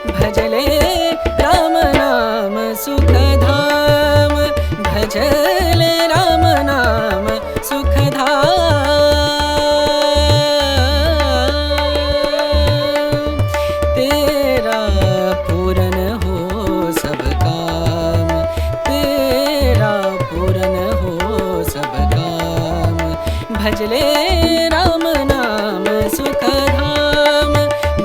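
Indian devotional music with tabla: a gliding melody over a steady held drone, with regular drum strokes.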